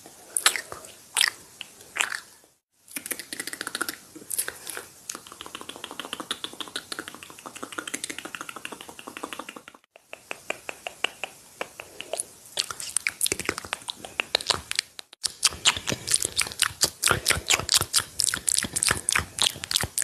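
Close-miked ASMR mouth sounds: wet clicks and smacks of lips and tongue, made in several stretches broken by short silences. The clicks come quickest and densest over the last few seconds.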